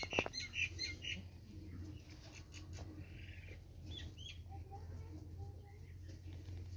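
Small birds chirping: a quick series of short high notes in the first second, then a few falling chirps about four seconds in, over a steady low hum.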